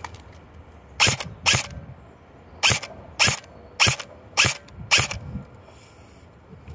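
Double Bell BY-012 AK-74-style airsoft electric gun (AEG) firing single shots: seven sharp shots, two about half a second apart, then a pause, then five more at a steady pace of roughly one every 0.6 s.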